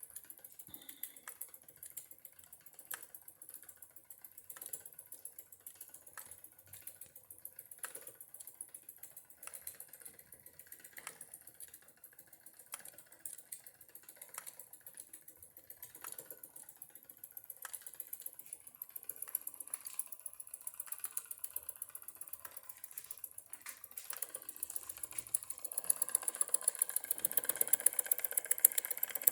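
Wilesco D3 toy steam engine running and driving a sledgehammer-man working model, its hammer making sharp clicking strikes about once a second at first. Over a steady high hiss, the strikes come faster and louder in the second half, and the hiss swells near the end.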